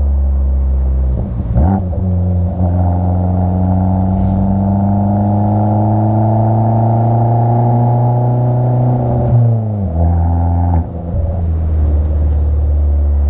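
Abarth 500's turbocharged 1.4-litre four-cylinder engine driving along. The revs dip briefly about a second and a half in, then climb slowly for about eight seconds as the car pulls through a gear. They fall sharply about ten seconds in and settle.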